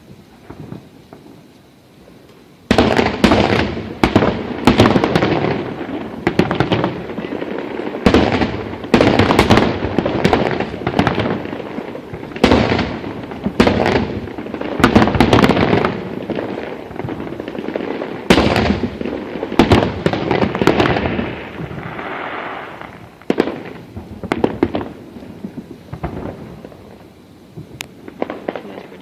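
Fireworks display: after a short lull, a dense barrage of aerial shell bursts and crackles starts suddenly about three seconds in, each bang trailing a rolling echo, and thins out to scattered pops near the end.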